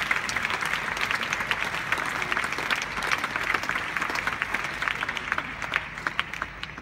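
A large audience applauding, a dense patter of many hands clapping that thins out and dies away near the end.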